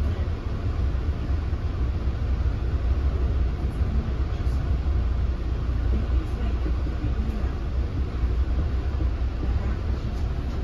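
Steady low rumble of an NJ Transit Multilevel passenger coach running along the track at speed, heard from inside the passenger cabin.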